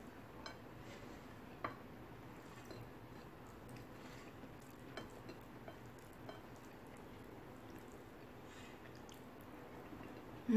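Quiet eating by hand: faint chewing and fingers pressing and squishing rice on a plate, with a few soft clicks. A brief vocal sound comes right at the end.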